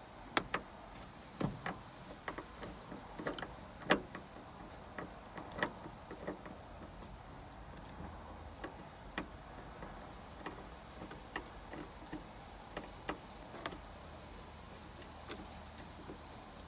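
Irregular light clicks and taps of plastic and a screwdriver as a vehicle sun visor is unscrewed and worked free of its headliner mount, over a faint low steady hum.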